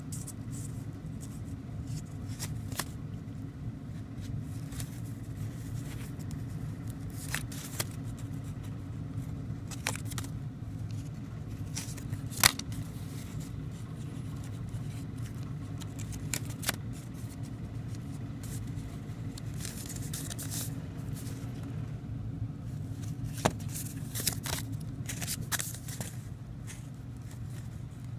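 Sawyer's View-Master reels and their paper envelopes being handled, giving scattered light clicks and rustles, one sharper click about halfway through, over a steady low hum.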